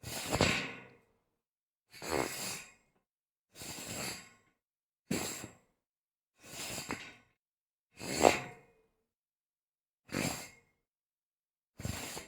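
A series of short scraping slides across a metal grate: eight separate strokes, each under a second long, with silence between them.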